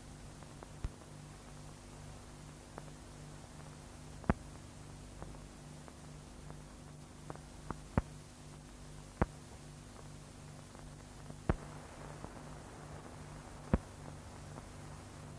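Surface noise of an old newsreel film soundtrack: faint hiss and a low pulsing hum, with a sharp click every couple of seconds.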